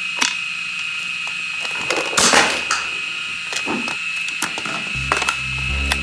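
A series of sharp clicks and knocks, with a louder swishing rattle about two seconds in, over a steady high whine; bass-heavy music comes in about five seconds in.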